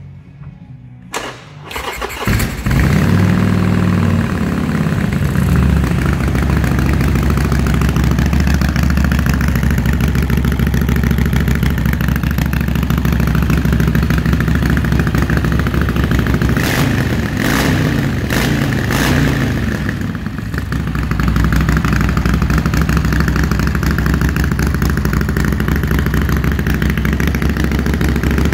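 Harley-Davidson Sportster 883's air-cooled V-twin cranked on the electric starter and catching about two seconds in, then idling steadily. Several brief throttle blips come around the two-thirds mark, after which it settles back to idle.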